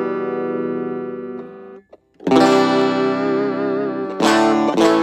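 Stratocaster electric guitar with single-coil pickups played clean through a small battery-powered mini amp: a chord rings and fades, stops briefly about two seconds in, then new chords are strummed and ring on with a wavering pitch.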